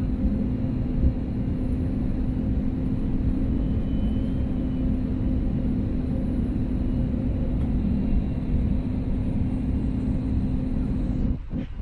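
Steady in-flight cabin rumble of an Airbus A320neo: engine and airflow noise with a constant low hum. It drops off abruptly near the end.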